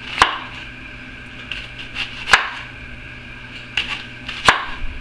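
Kitchen knife slicing a peeled onion thinly on a wooden cutting board. The blade cuts through and knocks on the board three times, about two seconds apart, with softer taps between, over a steady background hum.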